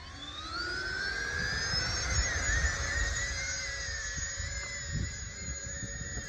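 Electric ducted fans of an RC VTOL jet (two 64 mm EDFs) spooling up, their whine rising in pitch over the first two seconds, then holding a high, slightly wavering whine as the model lifts off into hover.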